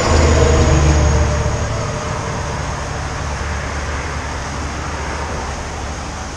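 Heavy dump truck driving past, its diesel engine a low rumble that fades over the first two seconds. A steady rushing hiss remains after it.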